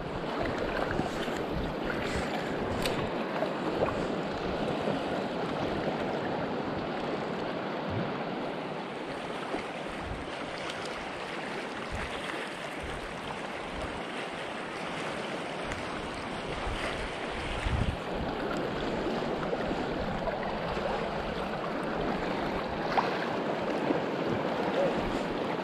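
Small waves lapping and sloshing in shallow water around a wading angler, a steady wash of sea noise, with a few brief gusts of wind buffeting the microphone, the strongest about eighteen seconds in.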